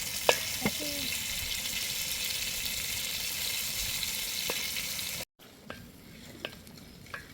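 Food frying in hot oil in a cooking pot, a steady sizzling hiss with a couple of sharp knocks in the first second. The sizzle cuts off suddenly about five seconds in, leaving a quieter stretch with a few faint clicks.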